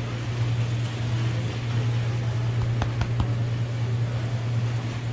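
Steady low hum under a constant hiss of indoor background noise, with a few faint clicks about three seconds in.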